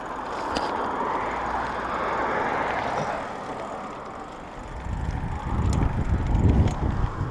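Mountain bike rolling across asphalt: a steady hiss of tyre and air noise. About two-thirds of the way in, heavy gusty wind buffeting on the microphone takes over.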